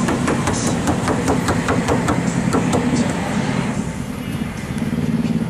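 Rapid, irregular clacking knocks, about four or five a second, over a steady low rumble; the knocks stop about three seconds in.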